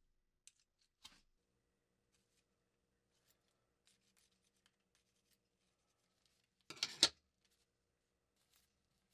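Faint light clicks and taps of a metal hemostat working a cotton wick into a small metal squeeze lighter, with one short, louder scraping rattle of metal on metal about seven seconds in.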